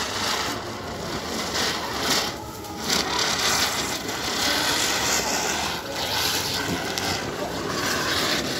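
Tubri, a clay fountain firework, spraying sparks with a continuous rushing hiss that dips briefly twice.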